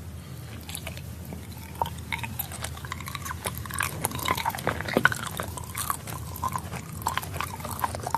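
A person chewing and biting food, with a run of wet clicks and crunches that starts about half a second in.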